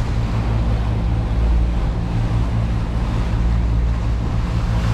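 A 40-foot catamaran under way at sea: a steady low engine hum under wind buffeting the microphone and the rush of water past the hulls.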